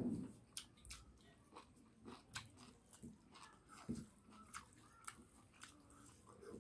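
Faint close-up eating sounds: a mouthful of cooked cow intestines and rice being chewed, with irregular small clicks and smacks and fingers working rice on a plate. A low thump comes right at the start and is the loudest sound.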